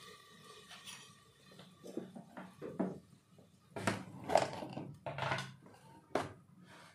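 Several short knocks and clatters of kitchen utensils, over faint sizzling of cumin seeds in hot oil in an aluminium pressure cooker.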